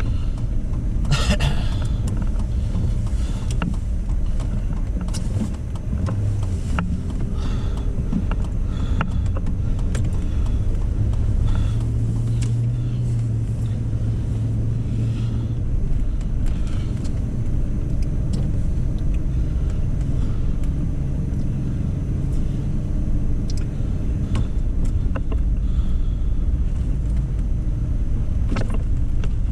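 A four-wheel-drive vehicle driving over a snow-covered road, heard from inside the cabin: a steady low rumble of engine and tyres with scattered light clicks and knocks. A steadier engine hum comes in for a few seconds about twelve seconds in.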